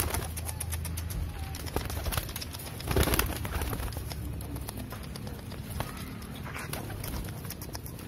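Domestic pigeons cooing, with a held pigeon flapping its wings in short flurries; the loudest flurry comes about three seconds in.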